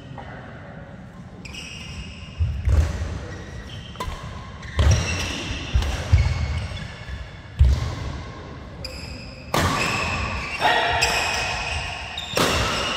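Badminton doubles rally: sharp racket strikes on the shuttlecock every second or two, the loudest near the end, with shoes squeaking and feet thudding on the synthetic court mat, ringing in a large hall.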